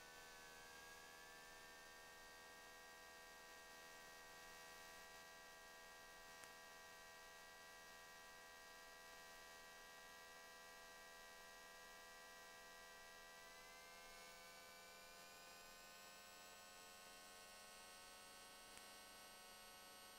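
Faint steady hum made of several tones, a few of them drifting slowly in pitch and some rising in the last third. It is the Beechcraft Baron's twin piston engines running at low power on the ground, heard only faintly through the cockpit intercom recording.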